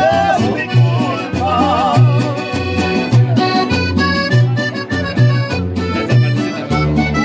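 Small band playing Latin American carnival music led by a piano accordion, with a strummed acoustic guitar and a steady bass beat of about two notes a second. A man's voice with vibrato sings over it in the first couple of seconds.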